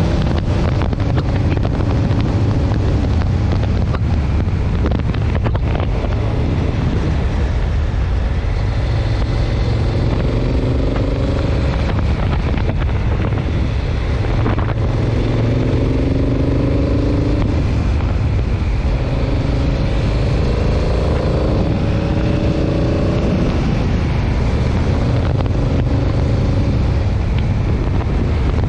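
Motorcycle engine running while riding, its pitch rising and falling with the revs, under steady wind rush on the microphone.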